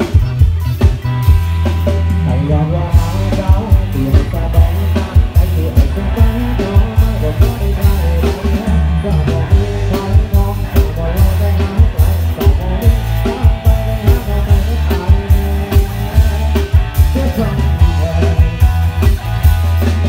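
A live rock-style band playing through a Thai rot hae sound truck's speaker stacks: electric guitars over a steady drum-kit beat, with very heavy bass.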